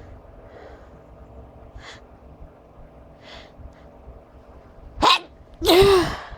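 A sneeze: a few quick sharp inhalations build up, then near the end comes a loud two-part sneeze whose second, longer part carries a voiced rise and fall in pitch.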